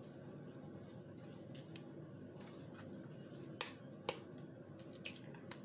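Kitchen handling sounds: a few sharp, light clicks and taps of utensils and dishware, most of them in the second half, over a faint steady background.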